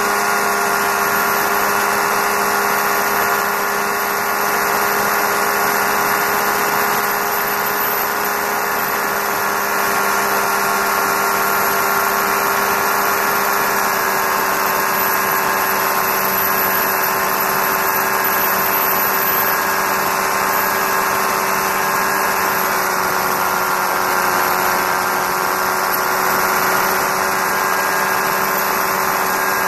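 Challenger II ultralight's engine and propeller droning at a steady cruise setting, mixed with steady wind noise on an outside-mounted microphone.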